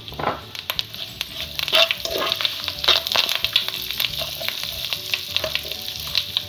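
Sliced onions and curry leaves sizzling in hot sesame oil in a nonstick pan. They are stirred with a slotted spatula that scrapes and clicks against the pan again and again.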